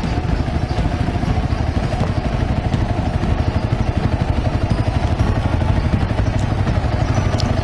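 Honda CRF250L's single-cylinder engine running steadily under way, with a rapid even pulsing of firing strokes and wind and road noise over it.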